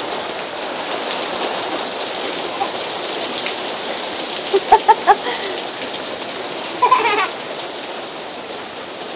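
Steady rain falling on a concrete patio. A small child's voice breaks in with short high calls twice, about halfway through and again two seconds later.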